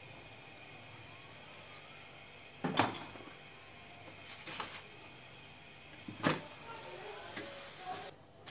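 Utensils knocking on a tawa, three sharp knocks with a few small clicks after, as a metal spatula is worked under and on a cooking paratha, over a faint steady hiss.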